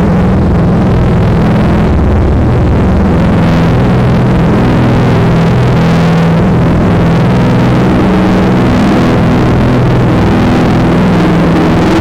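Heavily bass-boosted, clipped electronic sound effect: a distorted low drone of stacked pitched tones that step and shift, held at constant full loudness.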